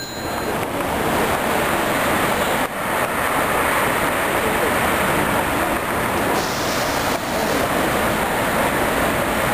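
Steady outdoor road-traffic noise, an even rush with no distinct events.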